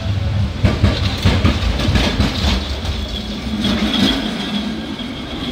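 A tram passing close by, its steel wheels clattering over the rails in a run of sharp knocks over a steady low rumble.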